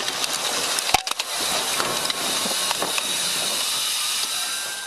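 Aftermath of a semi-truck smashing into a police car: a steady loud hiss with crunching and crackling of debris, and one sharp crack about a second in.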